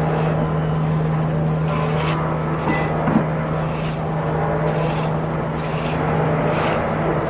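Heavy machinery engine running steadily with a constant low hum, overlaid by hissing bursts about once a second, and a single knock about three seconds in.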